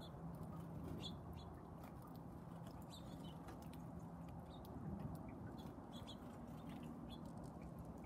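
Faint, short chirps of small songbirds, scattered irregularly, over a low steady hum.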